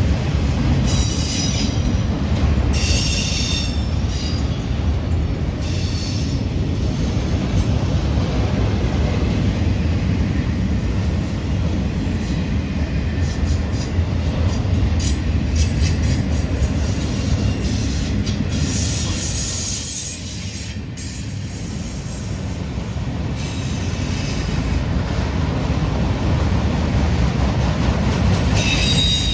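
Autorack freight cars rolling past on a curve: a steady rumble of wheels on rail, with high-pitched wheel squeal rising and fading several times.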